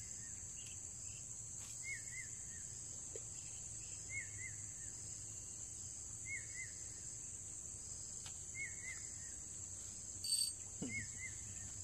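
Steady high-pitched drone of insects, with a short double chirp repeated about every two seconds and a brief tap about ten seconds in.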